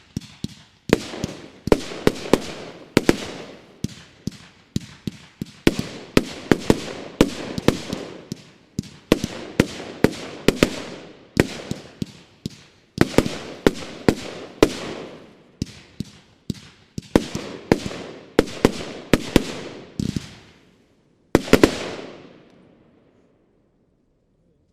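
Bonfireworks Sonic Spin Shell firework battery (25 mm, 112 shots) firing: a rapid run of sharp shots and bursts, several a second in close clusters. It ends with a last volley about 21 seconds in that dies away.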